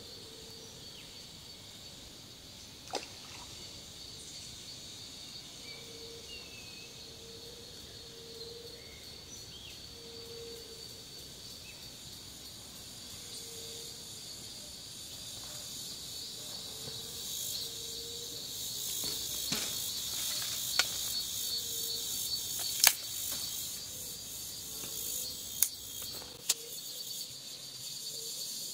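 Insects chirring steadily at a high pitch, with a few sharp clicks scattered through, more of them in the second half, and a faint low note recurring now and then.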